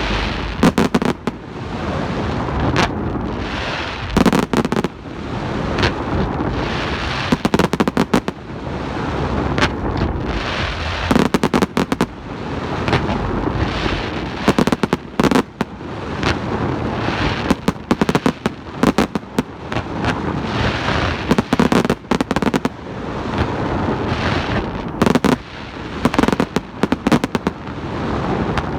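Fireworks going off: clusters of sharp bangs every couple of seconds, with dense crackling between them.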